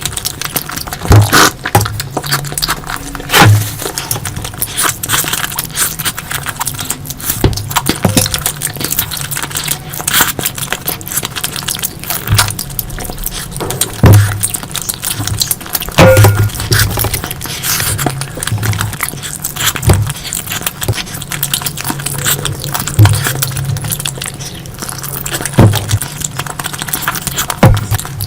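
Close-miked eating sounds: wet chewing, smacking and sharp clicks from someone eating curry in big bites.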